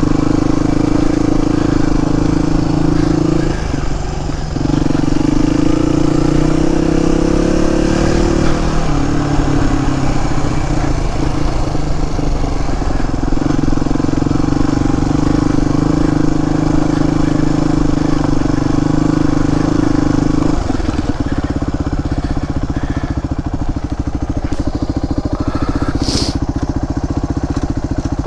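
Suzuki DR250S single-cylinder four-stroke trail bike engine, through an aftermarket Dominator exhaust, running under way. It drops off briefly about 4 s in, then revs rise around 7–8 s. About 20 s in it settles to a slower, lumpy, pulsing low-rev beat, with a short high-pitched squeak near the end.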